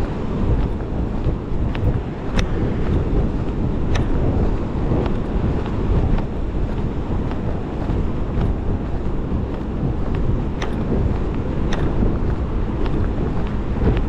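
Wind buffeting the microphone with a steady, heavy low rumble. Faint ticks come through every second or so.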